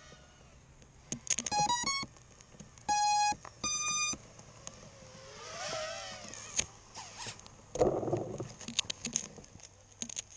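A crashed FPV racing quad gives a quick rising run of electronic beeps, then two longer single beeps. After that come hissing and scattered crackles and pops as the quad smokes and burns.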